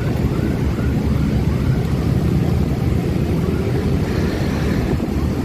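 Motorcycle ride noise heard through a chest-mounted phone: steady wind rush and road noise with the motorcycle's engine running underneath.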